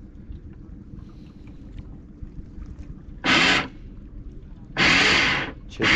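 Electric anchor windlass hauling in anchor chain in short runs over a low, steady boat-engine rumble. It runs twice briefly a little past halfway, about a second apart, then starts again just before the end and keeps running with a steady whine. The pauses let the boat motor up over the chain so the windlass is not loaded.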